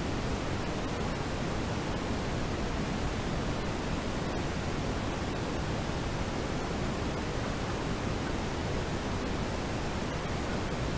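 Steady, even rushing hiss of a car's road and tyre noise inside the cabin, picked up by the VIOFO A129 Duo dashcam's built-in microphone, with no change in level.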